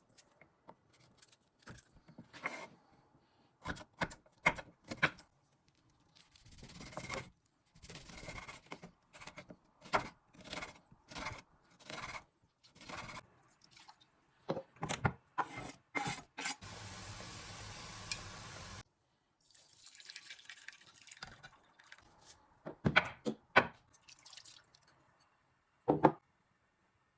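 Kitchen utensils knocking and scraping in short, irregular strokes as ingredients are prepared. A steady rushing noise runs for about two seconds a little past the middle.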